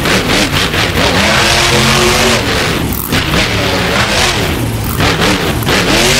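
Monster truck engine revving hard, its pitch rising and falling several times over loud, rough engine noise.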